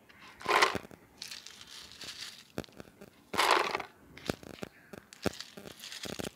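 Small stone pieces dropped by hand into a plastic bucket, clattering in two loud handfuls about half a second and three and a half seconds in, with sharper single clicks of stones knocking together as more are picked from the pile. The stones are being laid as a drainage layer at the bottom of the bucket.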